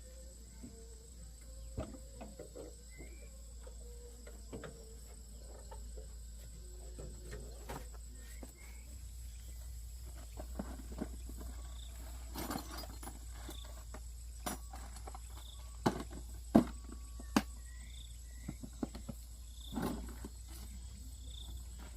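Faint outdoor rural background: scattered light knocks and clicks, a steady high insect-like whine, and from about halfway a short high chirp repeating roughly once a second.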